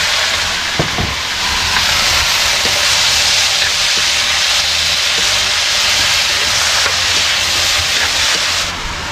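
Boiled jackfruit pieces sizzling loudly in hot oil in a wok over a wood fire, a steady frying hiss as the wet pieces hit the oil, with a few light scrapes of a metal ladle stirring them against the wok. The sizzle eases slightly shortly before the end.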